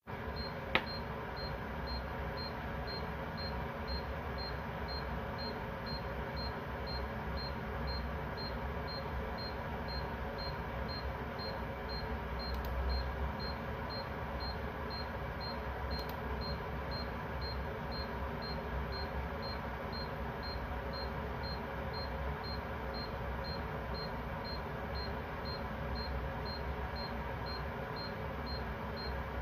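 An electronic alarm beeping steadily: short, high-pitched beeps about twice a second, over a steady low hum. There is one sharp click about a second in.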